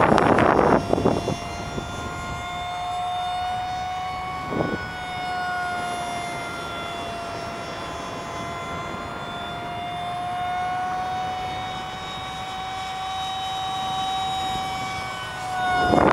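Jet fighter's engine heard in flight: a steady whine that drifts slowly up and down in pitch. A loud rush of noise fills the first second, and a short one comes about four and a half seconds in.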